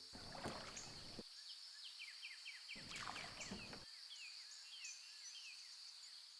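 Faint outdoor ambience: insects keep up a steady high drone while birds give many short, falling chirps. There are two brief, roughly one-second stretches of rustling noise, one near the start and one about three seconds in.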